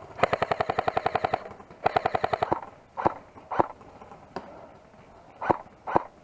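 Airsoft electric rifle firing on full auto: a burst of about a second of rapid, evenly spaced shots, a second shorter burst, then several single shots spaced out.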